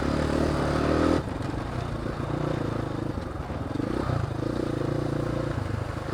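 Dirt bike engine running under throttle, then easing off a little over a second in and carrying on at lower revs.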